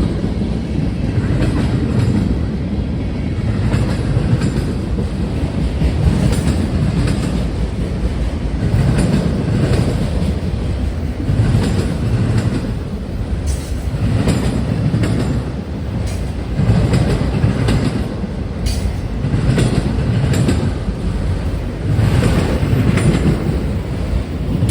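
CN freight train's cars rolling past close by: a steady rumble with rhythmic clickety-clack as the wheels pass over rail joints, swelling every second or two. No horn is sounding.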